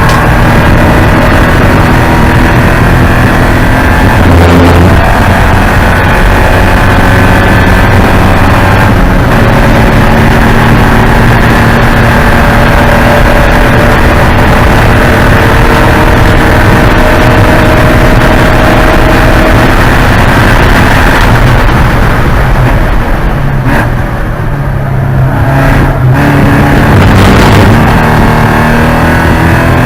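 Porsche 944 Spec race car's four-cylinder engine running hard at high revs, its pitch climbing and dropping through gear changes. About three-quarters of the way through it eases off briefly, then pulls hard again.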